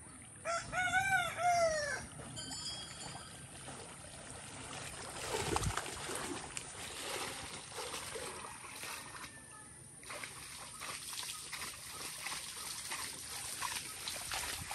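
A rooster crows once about half a second in, a rising-and-falling call lasting about a second and a half. After it comes the sloshing and splashing of a person wading through pond water.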